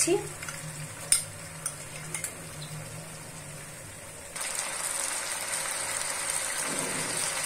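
A few light clicks of a metal spoon against a glass bowl as cumin paste is scraped out. About four seconds in, a steady sizzle of hot oil frying onions and spice pastes starts suddenly.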